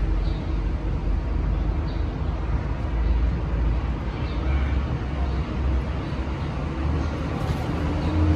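Steady low rumble of background noise with no clear pauses, with a few faint short ticks now and then.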